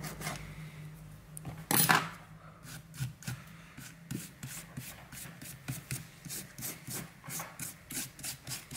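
Flat-blade screwdriver scraping along the edges of a tablet's frame in quick repeated strokes, about two a second, with one louder scrape near two seconds in, clearing out sticky leftover adhesive and glass fragments after a screen removal.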